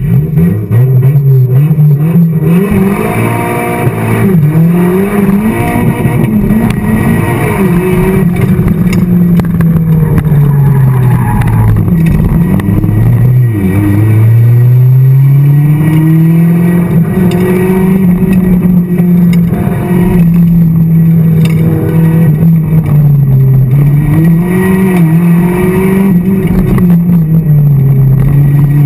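1990 Mazda Miata's 1.6-litre four-cylinder engine heard from inside the cabin, pulling away hard and then revving up and down through the course, its note rising and falling again and again. About twelve seconds in it drops to a low pitch, then climbs back in one long pull.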